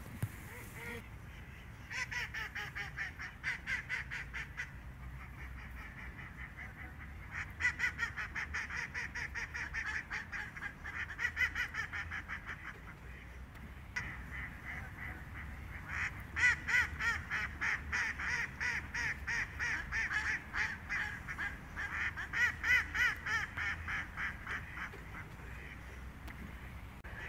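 A flock of ducks quacking in rapid runs of calls, in three bouts with short lulls between them; the longest bout comes in the second half.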